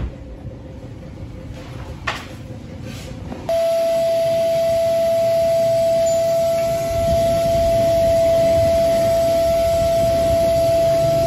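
Wet-and-dry car-wash vacuum cleaner comes on suddenly about a third of the way in and runs with a steady high whine and hiss. Before that there is only quieter background noise and one sharp click.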